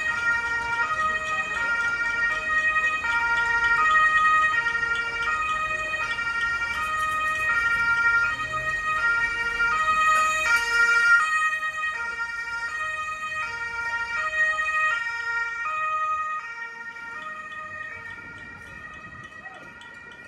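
Two-tone emergency-vehicle siren (a German Martinshorn) alternating between a low and a high note a fourth apart, about one low-high cycle a second. It fades away over the last few seconds as the vehicle moves off.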